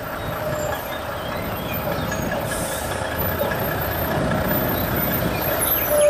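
Volvo eight-wheel heavy recovery truck driving slowly past, its diesel engine running steadily.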